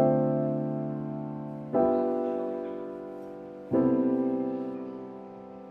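Background piano music: three sustained chords, struck about two seconds apart, each slowly fading.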